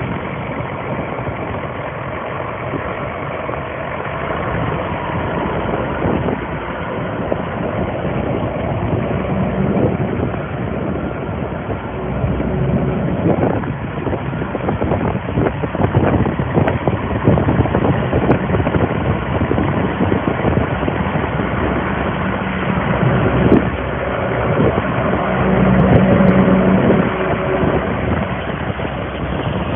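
John Deere 9400 4WD tractor's six-cylinder diesel engine running steadily, its level swelling a little at times and rising somewhat near the end.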